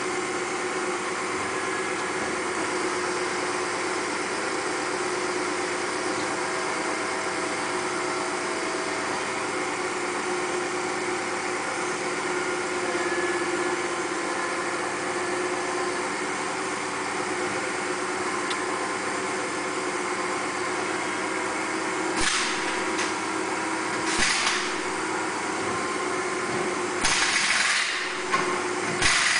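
A steady mechanical running hum, engine-like and even, with short hissing bursts about two-thirds of the way through and again near the end.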